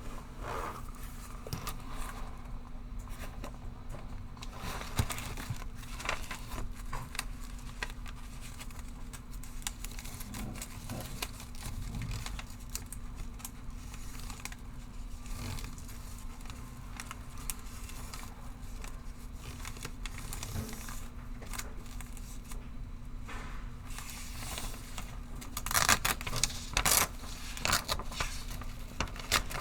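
Pencil scratching on paper in many short strokes as someone writes, over a steady low room hum. A few louder scratches or paper rustles come near the end.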